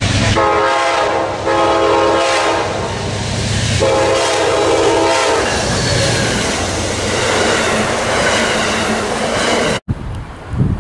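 Amtrak passenger train's horn sounding three long blasts, the first two almost back to back, over the rumble and clatter of the train running past at speed. The sound cuts off suddenly near the end, giving way to wind on the microphone.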